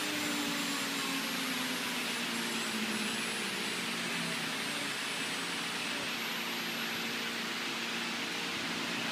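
4-axis CNC router running: a steady hiss with faint motor whines that shift and glide in pitch as the gantry and tilting spindle head move.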